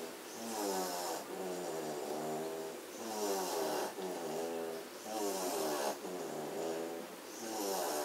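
German shorthaired pointer puppy snoring in deep sleep: a rhythmic, wavering, pitched snore on each breath, with a breath about every two seconds.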